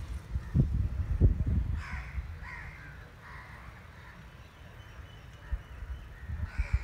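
Crows cawing a few times, a series of calls in the first half. Low rumbling bumps on the microphone are loudest about a second in.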